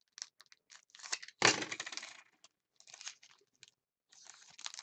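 Foil trading-card pack wrapper crinkling and crackling as the cards are pulled out by hand, in short irregular bursts with the loudest about a second and a half in.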